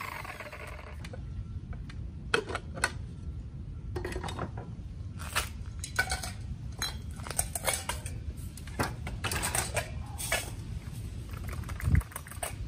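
Homemade rock crusher being opened and tipped to empty crushed ore into a metal pan: irregular metallic clinks and knocks, with a heavier thump near the end. It opens on the last of the Makita angle grinder winding down.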